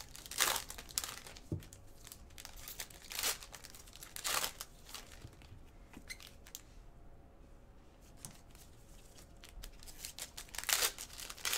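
Trading-card pack wrappers being torn open and crinkled, in several short bursts about half a second in, around three and four seconds in, and near the end, with light handling clicks between.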